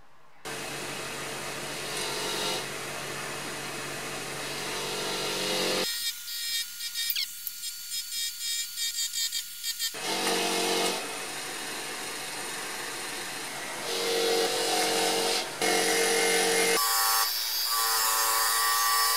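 Sealey 200 mm bench grinder running, its wire wheel brushing grime and rust off steel heater control cable ends. It comes in several short stretches that change abruptly, with rapid pulses of scratching in the middle as a cable end is worked against the wheel, and it cuts off suddenly at the end.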